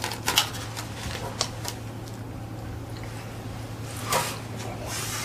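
A person biting into and chewing a ningyo-yaki, a small soft cake: faint scattered mouth and handling clicks, mostly in the first second or two, over a low steady hum.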